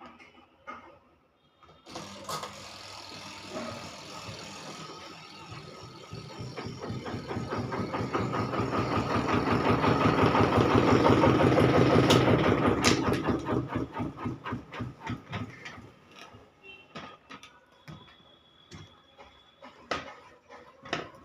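Washing machine spin dryer starting up and running, with a fast rhythmic rattle that grows louder as it speeds up, loudest around ten to twelve seconds in, then dies away as it slows down.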